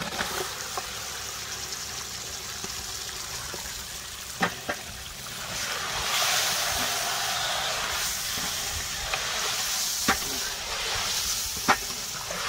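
Marinated chicken pieces sizzling in hot oil and fried masala in a large metal pot as they are stirred in with a wooden spatula; the sizzle grows louder about six seconds in, and a few sharp knocks come through it.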